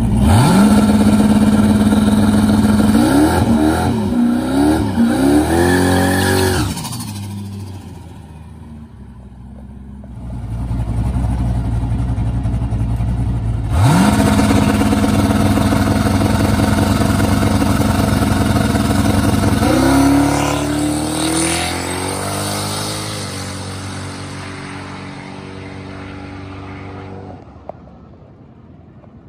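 Turbocharged 6.0 L LQ4 V8 drag car doing a burnout: the engine is held at steady high revs for several seconds, wavering up and down near the end. After a quieter pause it launches hard at steady revs, the revs climb about twenty seconds in, and the sound then fades as the car runs away down the strip.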